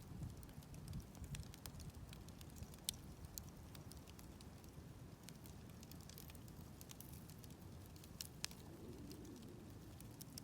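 Wood campfire burning softly: a low steady flutter of flame with scattered small crackles, and two sharper snaps, about three seconds in and again at about eight seconds.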